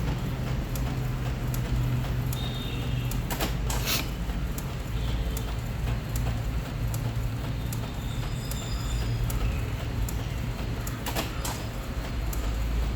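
Epson L14150 A3 inkjet printer printing on plain paper in high-quality mode: the print-head carriage shuttles across the page with a steady low hum and scattered clicks.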